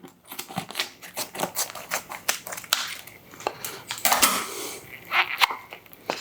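Kitchen prep clatter: irregular clicks and knocks of utensils, cookware and food being handled on the counter, with a short noisy burst about four seconds in.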